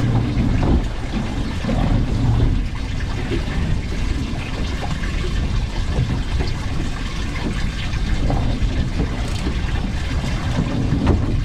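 Water sloshing against a fishing boat's hull, over a steady low rumble.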